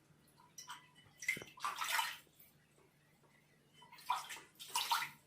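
Faint water splashing in two short spells, about a second in and again near the end.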